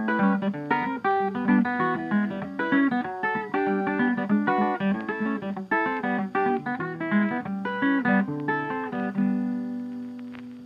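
Background music: a quick plucked guitar piece, note after note in a busy run, settling into a few held, ringing notes near the end as it fades.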